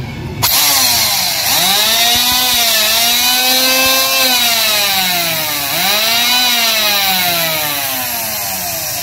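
F-20 electric hand planer running free with no wood under it: a loud motor whine over a steady hiss, starting about half a second in. The whine dips and climbs back twice, and otherwise sinks slowly in pitch.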